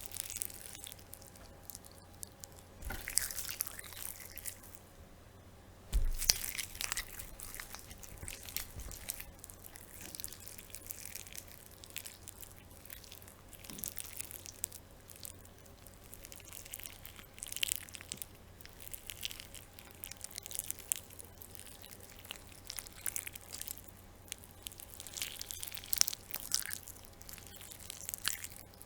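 Slimy flesh sound effect: irregular wet squelching, tearing and crunching, like flesh being chewed and devoured, with the loudest bursts about 3 and 6 seconds in over a faint steady hum.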